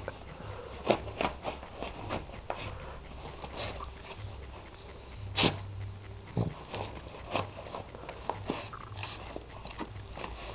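Pug sniffing and snorting with its nose pushed into its fleece bed: a run of short, sharp sniffs at uneven intervals, the loudest about five seconds in.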